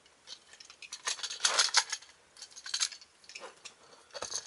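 Hard plastic parts of a Power Rangers DX Wild Force Red Lion zord toy clicking and clattering as they are handled and pulled apart, in several short bursts, the busiest about one to two seconds in.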